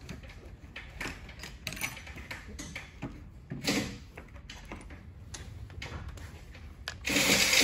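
Tools clicking and clattering against metal while the last intake manifold bolts are removed from a 3.6 Pentastar V6. There is a louder burst of noise about halfway through and another, the loudest, lasting about half a second near the end.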